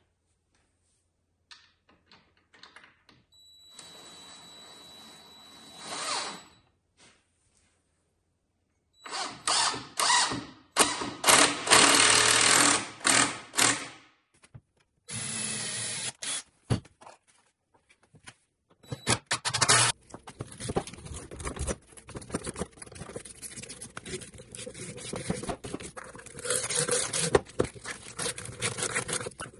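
Cordless drill running in repeated bursts of a few seconds each, with clicks and clatter between them.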